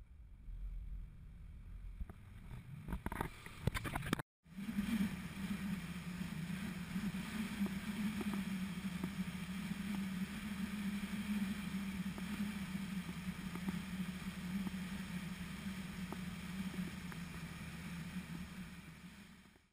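Classic air-cooled VW Beetle driving at a steady speed, heard from a camera mounted on the car's body: a steady drone of engine and tyres under wind and road noise. A few sharp knocks come near the start, and the sound drops out briefly about four seconds in.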